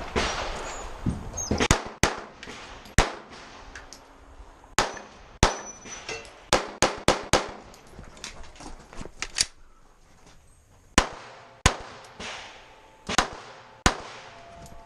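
Glock pistol shots fired in quick pairs about half a second apart, with pauses of one to two seconds between the pairs.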